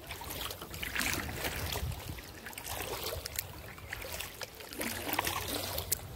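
Kayak paddle strokes: the blade swishing through calm water and dripping, swelling about every second or two, with a few light clicks.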